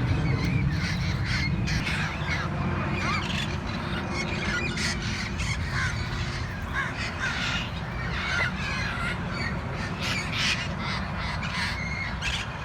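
A flock of feral parrots calling from the trees: many short, harsh squawks, some overlapping, over a steady low rumble.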